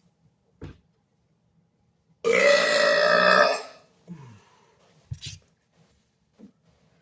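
A man's long, loud belch, about a second and a half, starting about two seconds in, its pitch dropping partway through. A brief low falling sound and a couple of faint knocks follow.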